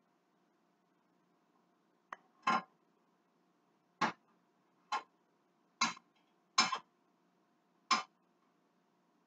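Kitchenware being handled: seven sharp knocks and clicks, irregularly about a second apart, starting about two seconds in.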